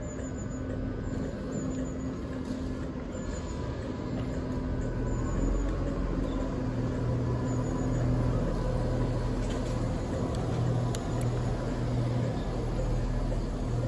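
InterCity 225 electric train, driving van trailer 82211 leading with Class 91 locomotive 91105 at the rear, humming steadily as it starts to pull away. The low electric drone with a few steady tones grows slightly louder about halfway through.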